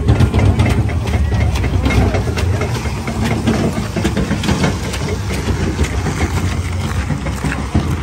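An engine idling with a steady low rumble that eases a little after the midpoint, under a crowd's chatter.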